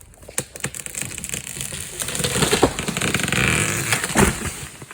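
Dead wattle tree coming down: a crashing, crackling rush of breaking branches that builds for a couple of seconds, is loudest near the end, and then dies away.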